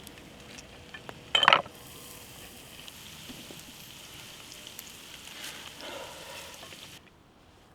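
Steak sizzling over campfire embers: a steady hiss with small crackles, with one short loud clatter about a second and a half in. The sizzle cuts off suddenly near the end.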